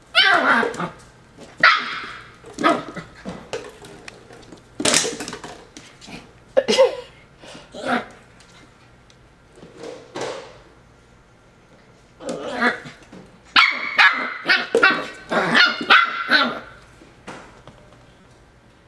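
An eight-week-old puppy barking at an empty plastic water bottle. Single barks come every second or two, then a quick run of barks about two-thirds of the way through, and one last bark.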